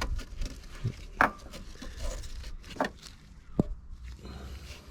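A few sharp metallic clicks and knocks, about three, spread out, as mole grips and a freshly removed rusty broken stud are handled.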